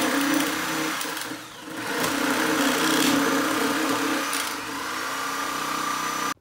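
Corded reciprocating saw running as it cuts through a wooden roof rafter, a steady buzz that dips briefly about a second and a half in, then stops abruptly near the end.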